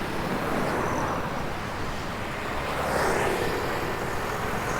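Street traffic noise, a steady rush of passing vehicles, with one vehicle growing louder about three seconds in.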